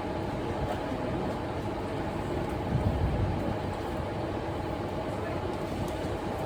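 Electric suburban train running, heard from inside the carriage: a steady rumble of wheels on track and running gear, with a heavier low thud about three seconds in.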